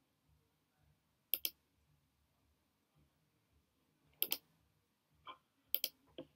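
Computer mouse clicking: three sharp double clicks, about a second and a half in, about four seconds in and near the end, with a few fainter clicks between.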